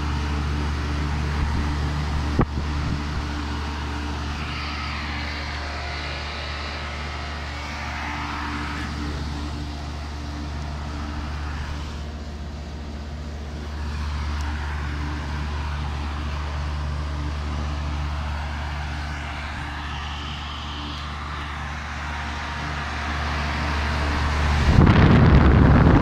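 Old Lennox central air conditioner's outdoor condensing unit running in cooling mode: a steady electric hum from the compressor and condenser fan motor. Near the end a much louder rush of air takes over as the fan's discharge blows straight onto the microphone.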